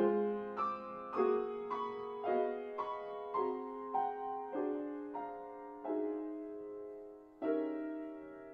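Piano music: chords struck at a slow, even pace, a new chord about every half second, each ringing and fading, with one longer held chord near the end.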